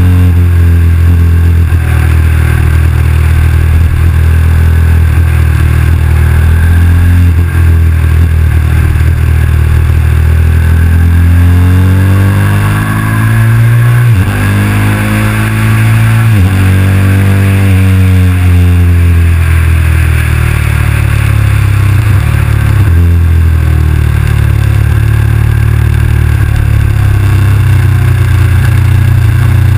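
KTM 990 SMR's V-twin engine under way. The revs climb about halfway through with two sharp breaks like upshifts, then fall away and settle, with wind rushing over the microphone throughout.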